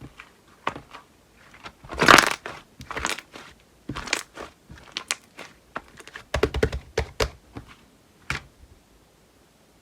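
Slime being squished and pressed by hand, making a run of sharp clicks and pops, with a longer dense burst about two seconds in and a quick cluster of clicks around six to seven seconds.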